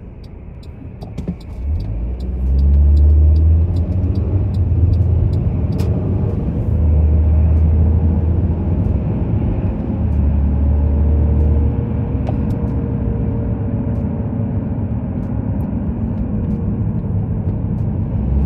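Car engine and road noise inside the cabin as the car pulls away from a stop: the engine pitch climbs for a couple of seconds, then holds steady at cruising speed under a loud low rumble of tyres and wind.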